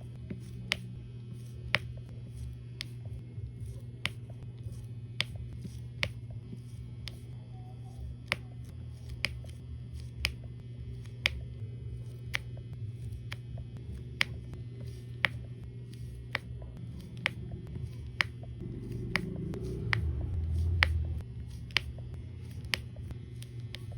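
Diamond-painting drills being pressed one at a time onto the sticky canvas with a gludot-tipped pen, each giving a short, sharp pop, about one a second, over a steady low hum. A low rumble swells briefly about three-quarters of the way through.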